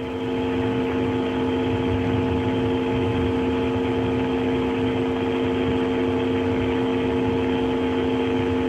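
Steady mechanical hum with a constant hiss, a few pitched tones held without change, from machinery at the Soyuz launch pad in the last minute of the countdown.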